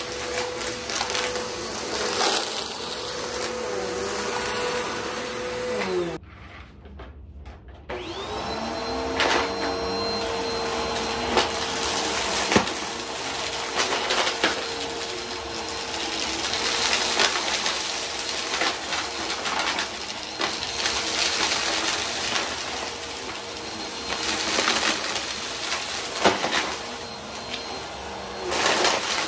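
A vacuum cleaner running with a steady whine, which winds down in pitch and stops about six seconds in. About two seconds later a Bissell upright vacuum starts up, its motor whine rising to a steady pitch, and runs on over the rug with scattered sharp clicks and rattles.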